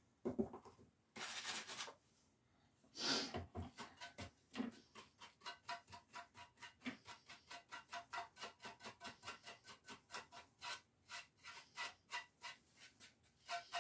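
Faint brush strokes working dark antique furniture wax into a lamp's surface: two longer scratchy rubs at first, then a long run of quick, even dabbing strokes about four or five a second.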